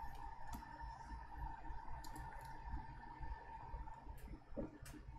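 Faint scattered clicks and light handling noise from an iPhone board and test screen assembly, with power-supply leads attached, being turned over and set down on the bench, over a steady faint hum.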